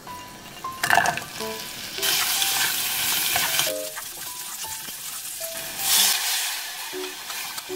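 Sliced garlic cloves sizzling in hot oil in a small pot, the sizzle jumping up about a second in as the garlic goes in and being stirred with a wooden spatula. Around six seconds in there is a loud hiss as oyster-sauce seasoning is poured into the hot oil.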